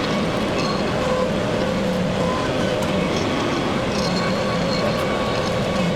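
LS XR3140H compact tractor's diesel engine running steadily, with a faint even whine over the engine noise.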